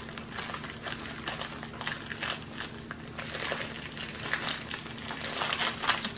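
Clear plastic sleeve crinkling as hands slide a rolled diamond painting canvas out of it: an irregular run of small crackles.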